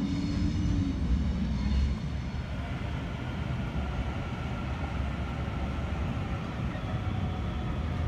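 Wind buffeting the microphone over the distant running of an electric suburban train on the junction tracks, with a faint whine that rises and falls through the second half.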